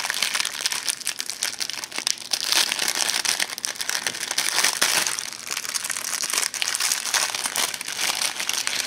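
Plastic food packaging crinkling continuously as it is handled and pulled off a store-bought quiche.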